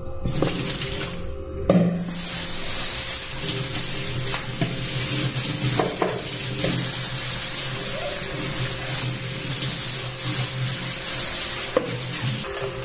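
Soapy water poured out of a plastic bowl into a steel sink, then a knock about two seconds in and a kitchen tap running steadily over the bowl as it is rinsed, with a few light knocks of the bowl.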